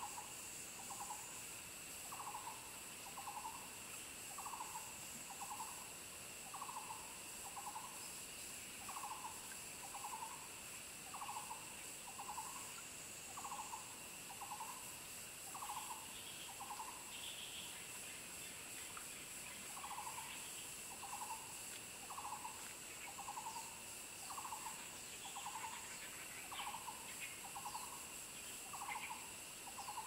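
An owl hooting in pairs of short notes, one pair about every two seconds, with a break of a couple of seconds around the middle. A steady high-pitched insect drone runs underneath.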